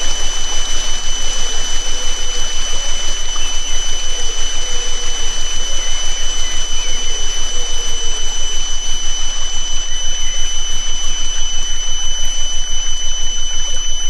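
Two steady high sine tones of a 'healing frequency' track, one about twice the pitch of the other, held without change. Under them runs a forest ambience of steady rain-like hiss with faint chirps, and the whole mix pulses rapidly in loudness.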